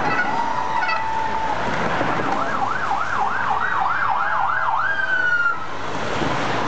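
A vehicle siren: a short steady tone, then a fast up-and-down yelp, about three swings a second for a few seconds, ending in a rising sweep.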